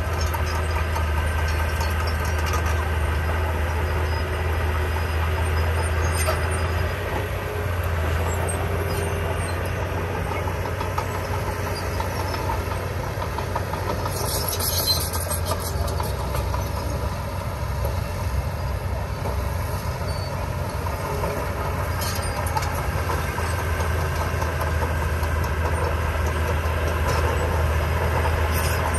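Diesel engine of heavy earthmoving machinery running steadily under load, with a deep low drone. A brief high-pitched squeak or screech comes about halfway through.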